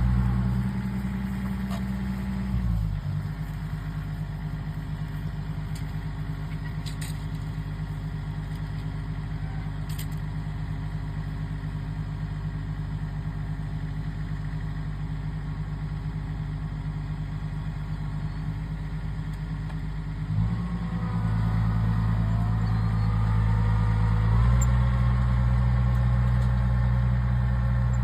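Engine of an old farm machine running steadily. It settles to a slower idle about three seconds in, then speeds up about twenty seconds in and again a few seconds later.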